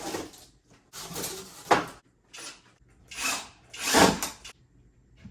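Furniture parts being handled during chair assembly: a series of short scraping, rustling bursts with a sharp knock about two seconds in.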